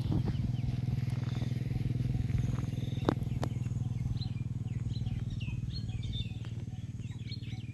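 A steady low hum runs throughout, with a few light clicks. Small birds chirp from about four seconds in.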